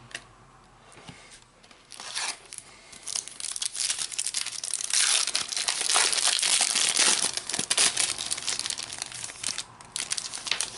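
Foil wrapper of a Topps Mega Match Attax trading-card pack being torn open and crinkled by hand. A dense run of crackling starts about two seconds in, is loudest in the middle and dies away near the end.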